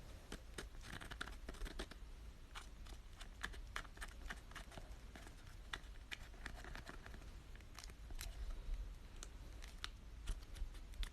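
Faint handling sounds of crafting a DIY toy by hand: scattered clicks and taps with bits of crinkling and cutting of paper-like material, over a low steady hum.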